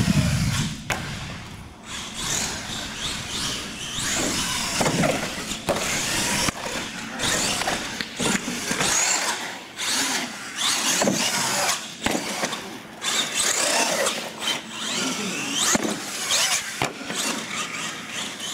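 Electric motors of R/C monster trucks whining, rising and falling with the throttle as the trucks drive and jump, with several sharp knocks of the trucks landing and hitting the ramps.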